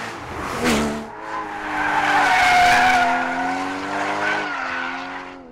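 Porsche Cayman GT4's 3.8-litre flat-six engine under load as the car corners hard, with its tyres squealing for about three seconds. A short burst of revs comes about half a second in, and the engine and tyre sound fade near the end.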